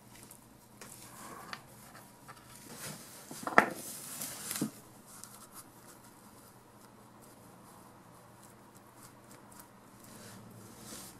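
Small clicks and clinks of torque wrench parts being handled and fitted, with a louder sharp clink about three and a half seconds in and another about a second later.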